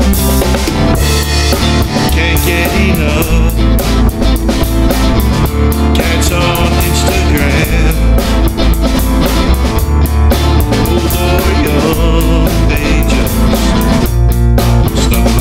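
Instrumental passage of a rock song with no vocals: a steady drum-kit beat with bass drum and snare under guitar.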